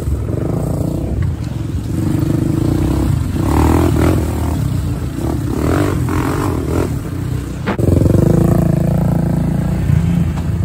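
Honda 400EX quad's single-cylinder four-stroke engine running under load, with rougher surges of throttle noise in the middle and a single sharp knock near eight seconds.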